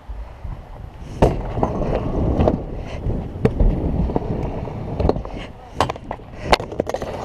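Stunt scooter's hard wheels rolling over concrete and onto ramps: a steady low rumble, broken by several sharp clacks and knocks, the loudest about a second in and twice near the end.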